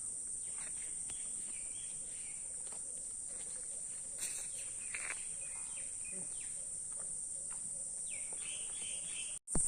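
Insects trilling in a steady high-pitched chorus, with scattered short bird chirps over it; the sound drops out abruptly for a moment near the end.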